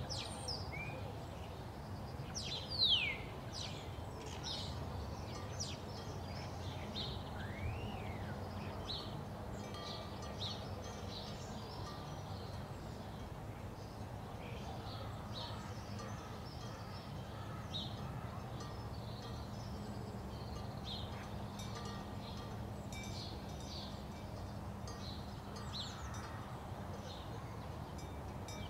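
Outdoor ambience of birds calling in short, scattered chirps and whistles over a steady low rumble and faint hum. The loudest call is a falling whistle about three seconds in.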